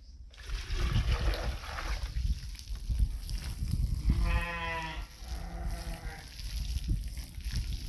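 A Dorper sheep bleats: one strong, wavering call about four seconds in, followed at once by a fainter second call, over a rough background noise.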